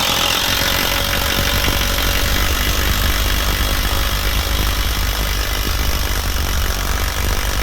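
DeWalt 921 half-inch cordless compact impact wrench hammering steadily on speed 2 while driving a 3/8-inch fastener into stacked plywood. The impacting runs on without a break.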